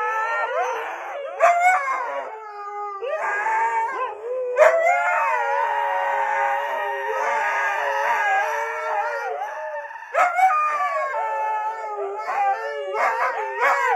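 Two huskies howling together in long, wavering howls, often overlapping at two different pitches, with short breaks about two and ten seconds in.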